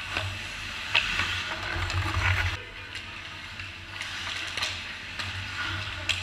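Ice hockey skates scraping and carving across the ice in a large indoor rink, with a few sharp clacks of sticks and puck. The loudest clack comes about a second in. A low steady hum runs underneath.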